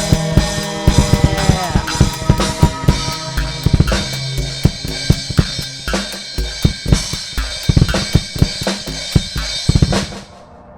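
Drum kit played fast and busy, with bass drum, snare and cymbals, over a backing track whose held notes fade out about two seconds in. The drums and music cut off abruptly about ten seconds in, leaving a faint steady sound.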